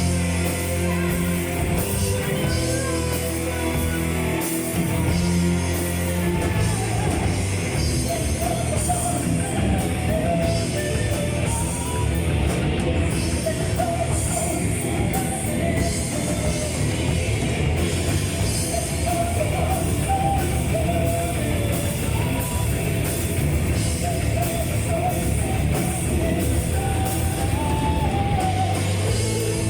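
Heavy metal band playing live: drum kit, distorted guitars and bass, with a voice singing a wavering melody over the band for most of the stretch.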